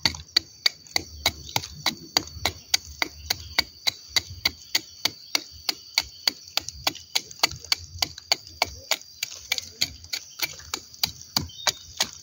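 A steel knife chipping and scraping rotten wood out of a canker wound in a durian tree trunk, in quick, even strokes of about four sharp taps a second. This is cleaning out trunk canker (stem rot) down to sound wood.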